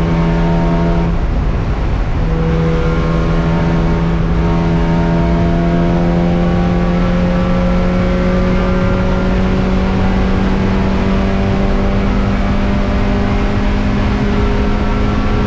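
Spec Miata race car's four-cylinder engine heard from inside the cockpit, pulling hard under throttle. The engine note drops out briefly about a second in, then comes back and climbs slowly and steadily in pitch as the car accelerates.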